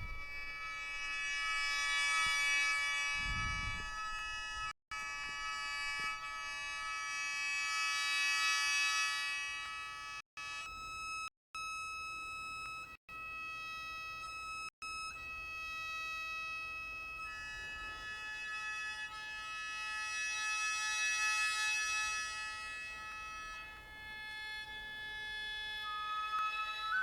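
Japanese gagaku-style wind instruments playing a netori tuning prelude: long held chords of many steady tones that slowly swell and fade. Several brief sudden dropouts break the sound in the first half. Near the end a high flute-like tone slides up into a held note.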